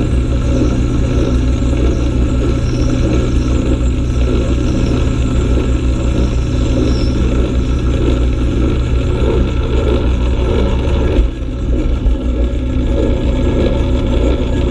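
Small belt-driven metal lathe running, its electric motor humming steadily under the noise of the tool cutting a spinning workpiece; the sound drops briefly about eleven seconds in.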